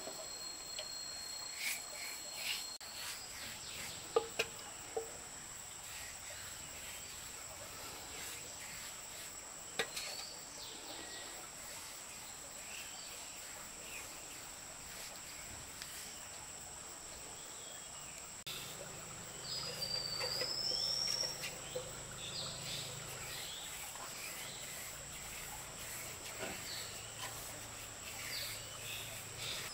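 Insects trilling steadily on one high, even pitch, with scattered light clicks and knocks. About two-thirds of the way in a low hum comes in and a short rising chirp sounds.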